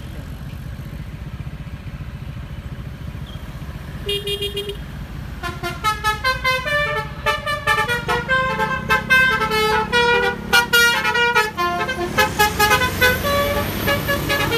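Intercity bus's 'basuri' telolet horn: one held note about four seconds in, then a fast melody of short notes stepping up and down. A low engine and traffic rumble runs underneath.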